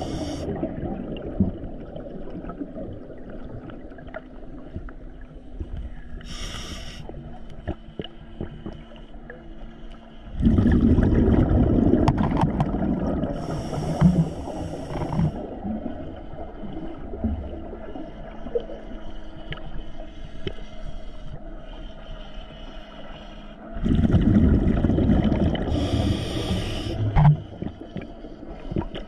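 Scuba diver's breathing heard underwater through the camera housing: a hiss of inhalation through the regulator, then two long rumbling bursts of exhaled bubbles, about ten seconds in and again near the end.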